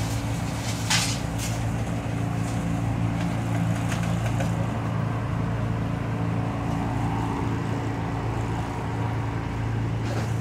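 Mini tracked loader's engine running steadily at a constant speed, with a sharp knock about a second in.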